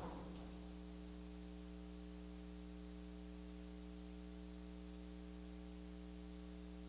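Low, steady electrical mains hum with a stack of evenly spaced overtones, unchanging throughout.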